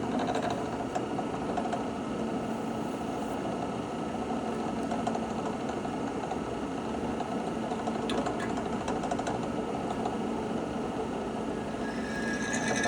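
Drill press motor running steadily while the bit drills a hole, with a louder, higher-pitched cutting noise near the end.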